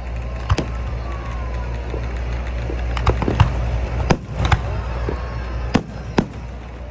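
Aerial firework shells bursting overhead: about eight sharp bangs at uneven intervals, several coming in quick pairs.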